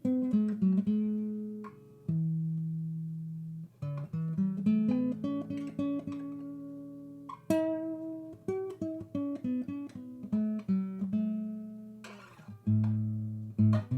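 Background music: acoustic guitar, plucked notes and chords ringing out and decaying.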